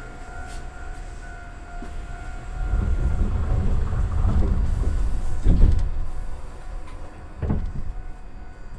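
Iyo Railway train moving off after its doors close, a low rumble that swells about two and a half seconds in, with two heavy knocks near the middle and near the end.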